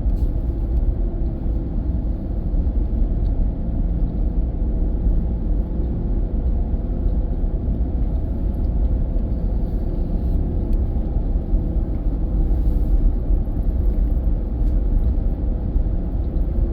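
Steady low rumble of a vehicle's engine and tyres on the road, heard from inside the moving vehicle's cabin.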